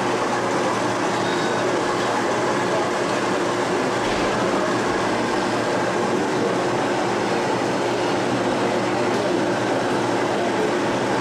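Model train running steadily along a layout's track, over the constant background hubbub of an exhibition hall.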